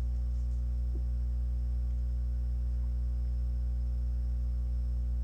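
Steady electrical mains hum, a low buzz with a stack of evenly spaced overtones, unchanging in level throughout.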